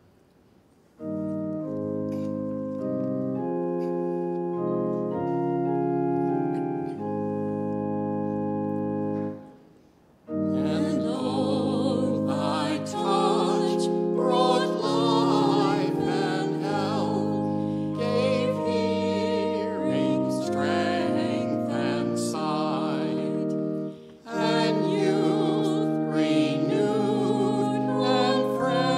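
Church organ playing a hymn introduction in steady held chords. About ten seconds in, singing begins over the organ accompaniment, with a short pause between phrases near the end.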